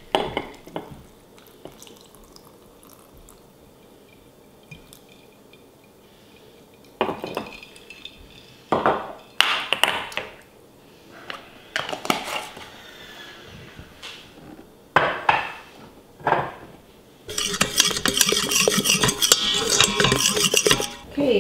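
Kitchen handling sounds: after a quiet few seconds, a handful of separate clinks and knocks of a glass jar and its lid on the counter. Then a continuous sloshing and scraping as milk is stirred with a wooden spoon in a stainless Instant Pot insert.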